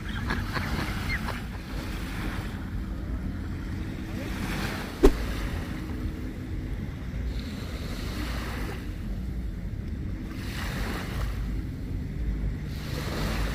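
Small waves washing onto a sandy shore, the wash swelling every couple of seconds, with wind rumbling on the microphone. A single sharp click about five seconds in.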